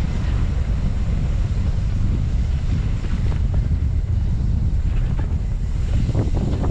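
Wind buffeting the camera microphone of a mountain bike riding down a trail, a loud steady rumble, with a few knocks and rattles from the bike over bumps in the second half.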